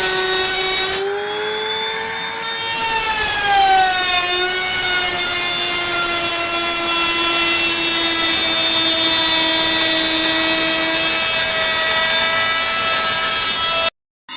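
Electric power saw cutting wood, its motor whine holding a steady pitch that sags and recovers as the blade takes load. The sound cuts out abruptly just before the end.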